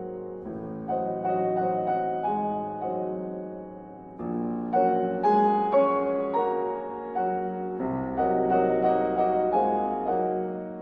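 Slow background piano music, with a new chord struck about every three and a half seconds and left to ring.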